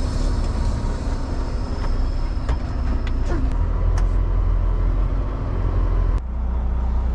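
Semi-truck's diesel engine running at low speed, heard from inside the cab as the truck maneuvers, with a few faint clicks in the middle. About six seconds in the higher hiss cuts off suddenly while the engine rumble goes on.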